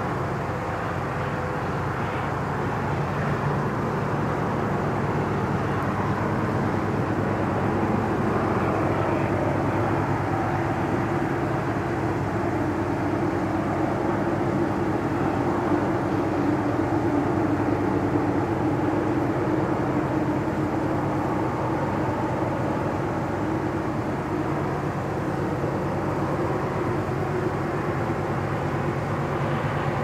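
Steady distant rumble of vehicles or engines, swelling a little in the middle and easing off later.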